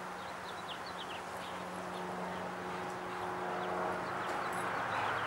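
Two dogs digging in dry, rocky dirt: paws scratching and scraping soil, growing slowly louder. Small birds chirp now and then in the background.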